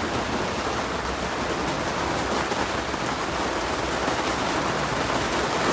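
Steady rain, many fine drops hitting a hard surface in an even hiss.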